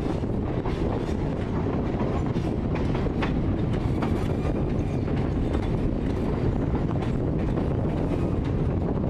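Skunk Train passenger cars rolling along the track, heard from an open car platform: a steady rumble of wheels on rail with scattered clicks and knocks.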